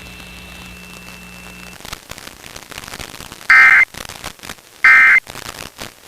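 Emergency Alert System end-of-message (NNNN) data bursts, sent twice about 1.3 s apart. Each is a brief, loud two-tone digital chirp, heard over FM radio static. A low hum under the signal cuts out about two seconds in, before the bursts.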